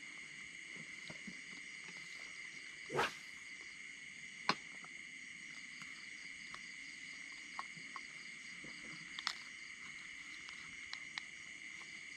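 A steady, high-pitched chorus of wild animals, like insects and frogs, with a louder knock about three seconds in and a few sharp clicks later.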